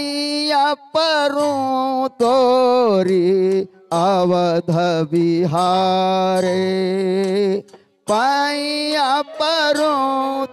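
A male folk singer holds long, wavering sung notes without clear words, in several phrases broken by short breaks.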